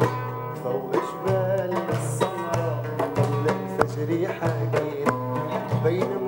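An oud, plucked fast in a running Arabic melody, accompanied by a darbuka (goblet drum) beating out a steady rhythm of hand strokes.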